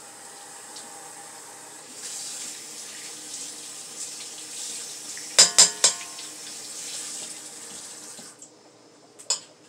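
Kitchen tap running into a sink, the flow growing stronger about two seconds in and shut off near the end. A little past halfway, three sharp clanks in the sink are the loudest sounds.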